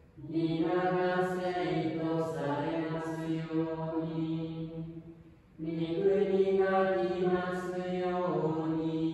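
Catholic Mass chant sung slowly on long held notes in two phrases, with a breath pause about halfway through.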